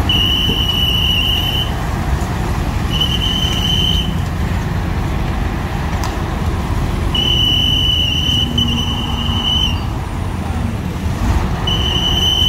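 Steady rumble of heavy vehicle engines and road traffic. A high, steady tone sounds four times over it, each lasting one to two and a half seconds.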